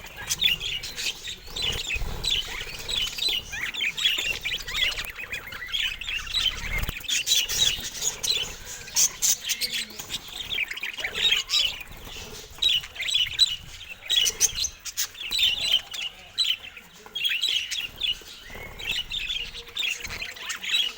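Budgerigars chirping and chattering continuously in quick, short high notes.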